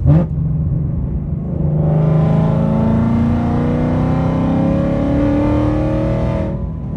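A 2019 Ford Mustang GT's 5.0 V8, fitted with long-tube headers and a Borla ATAK cat-back exhaust, pulling hard under acceleration: a short rev at the start, then a steadily rising engine note for several seconds that drops away near the end as the throttle is lifted or the gear changes.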